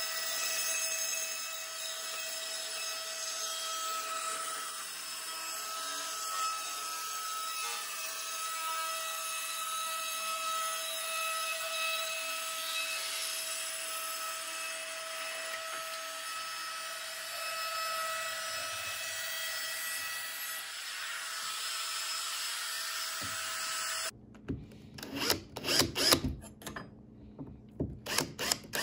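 Makita compact router running steadily with a whine while it cuts into a laminate-topped particleboard panel. Near the end it cuts off abruptly to a cordless drill boring into the panel in short start-stop bursts.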